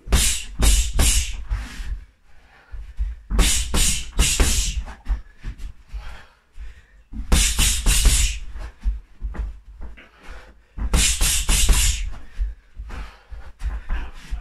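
Boxing gloves hitting a free-standing punching bag in quick combinations of several punches each. There are four flurries, each lasting a second or two, with short pauses between them.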